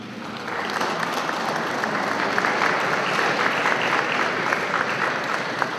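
A crowd of people applauding, many hands clapping together, swelling about half a second in and thinning out near the end.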